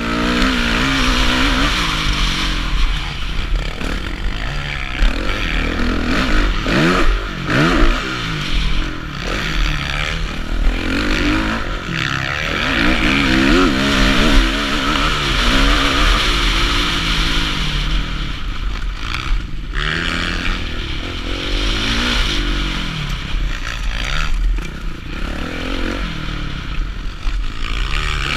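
Kawasaki KX450F four-stroke single-cylinder motocross bike ridden hard on a dirt track, heard from the rider's helmet. The engine revs rise and fall through the gears, with a few brief throttle cuts.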